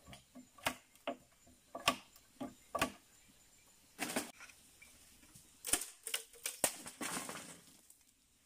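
A blade striking a bamboo pole as its nodes are trimmed, in irregular sharp knocks, with a rustle of leaves about seven seconds in as the pole is moved.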